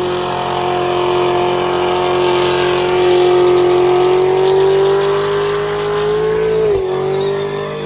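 Car engine held at high revs during a burnout, a steady high-pitched drone that rises slowly, dips briefly near the end and picks up again, over the hiss of tyres spinning on the pavement.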